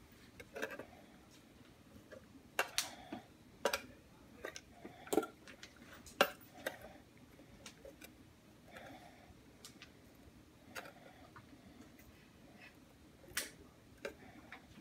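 Scattered, irregular clicks and taps of long metal tweezers and a clear plastic cup knocking against a plastic enclosure, several sharp ones in the first seven seconds and another near the end.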